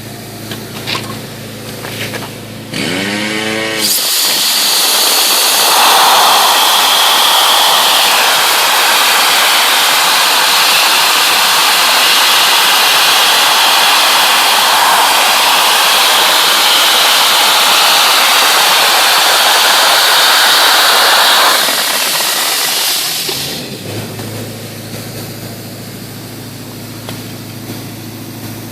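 Dry-ice blasting nozzle firing crushed dry-ice snow with compressed air at a wood sample, a loud steady hiss that starts about four seconds in and cuts off sharply near the end, stripping stain and grime from the wood.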